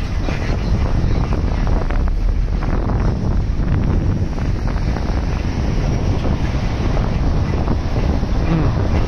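Wind buffeting the microphone of a camera riding on a moving bicycle: a loud, steady, low rumbling rush.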